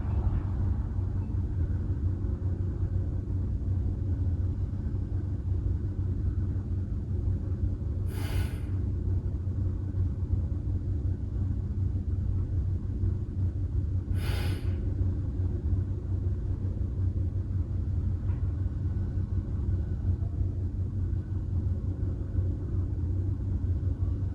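A steady low rumble of background noise, with two short hisses about eight and fourteen seconds in.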